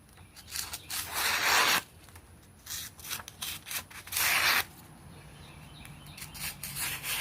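TOPS Bull Trout fixed-blade knife slicing through a sheet of paper in a sharpness test. Two hissing slices, the longer and louder about a second in and a shorter one about four seconds in, with a few lighter paper rustles between.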